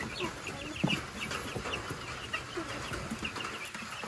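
Small flock of chickens: young chicks peeping in quick short calls throughout, with young hens clucking low underneath. A light knock about a second in.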